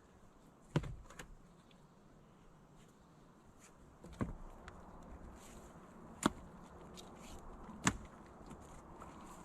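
About five sharp knocks at irregular intervals over a faint steady background.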